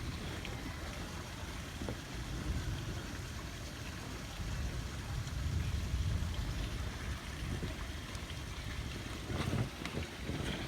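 Heavy rain pouring steadily, with a low rumble that swells about five seconds in and then fades.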